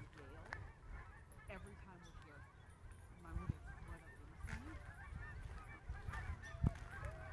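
A flock of geese honking, many short calls overlapping without a break, with a low rumble underneath.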